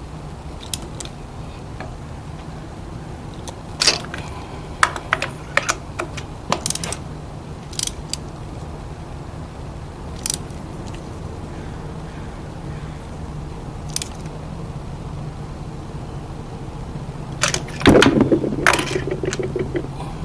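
Scattered sharp metallic clicks and clanks from hand tools being handled, with a louder burst of clatter near the end, over a steady low hum.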